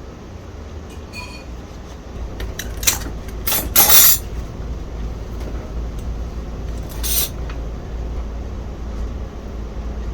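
Small tools and parts handled on a workbench: a few short clicks and scrapes, the loudest about four seconds in and another near seven seconds, over a low steady hum.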